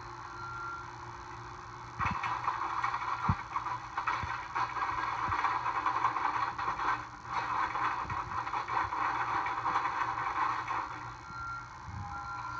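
Skid steer running steadily, with a loud stretch of gritty rattling and scraping from about two seconds in until near the end, as topsoil and stones are shaken through a homemade screen.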